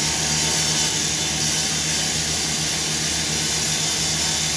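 Power saw running steadily as firefighters cut into the steel body of a burning garbage truck to open it up.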